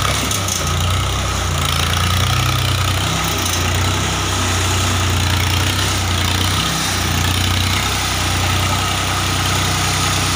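Ford 3600 tractor's three-cylinder diesel engine running steadily at low revs, with small dips in engine speed twice.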